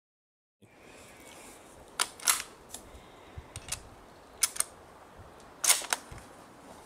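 Mauser Karabiner 98k bolt-action rifle being handled and its bolt worked: a string of sharp metallic clicks and clacks in short pairs, about two, four and a half and six seconds in, the last pair the loudest.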